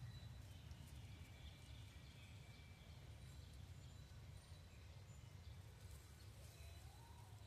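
Near silence: faint outdoor ambience with a steady low rumble.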